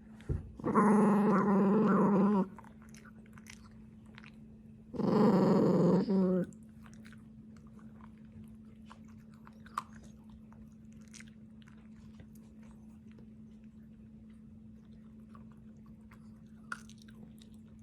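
Dachshund eating slowly: two drawn-out growls, each about a second and a half long, in the first several seconds, then faint scattered crunches of chewing.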